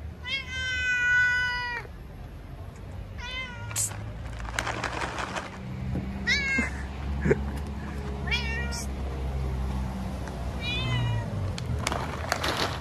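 Tabby cat meowing five times: a long, loud meow first, then four shorter meows a few seconds apart.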